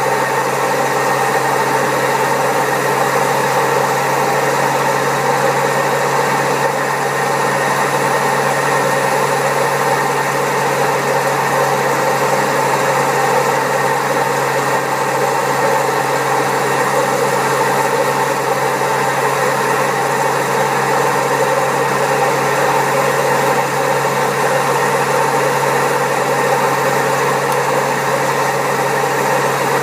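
Servis Caress 1300 washing machine spinning at high speed, a steady loud mechanical noise with a constant low hum, the sound of badly worn drum bearings.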